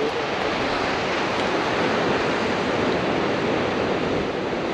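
Steady rushing noise of wind and ocean surf, with wind buffeting the microphone.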